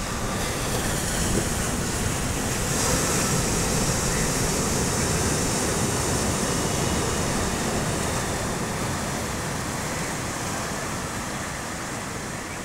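Sea waves breaking and washing up the beach: a steady rushing surf that swells about three seconds in and slowly fades.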